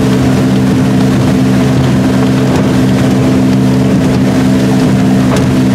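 Draco 1800 motorboat's Volvo Penta 4.3 V6 engine running at a steady cruising speed, its pitch unchanging, over a constant rush of wind and water.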